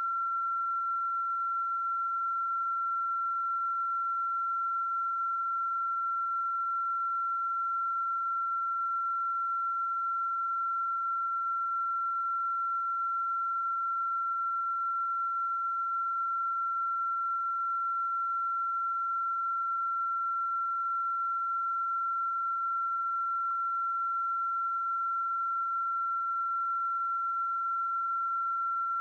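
A continuous single high-pitched electronic tone, unchanging in pitch and level.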